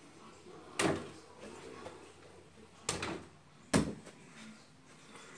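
Three sharp knocks or thumps: one about a second in, then two more close together about three seconds in, the last the loudest.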